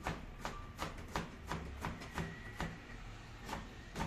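Chef's knife chopping leafy greens on a plastic cutting board: sharp, even knocks of the blade on the board, about three a second, with a brief pause near the end before the chopping resumes.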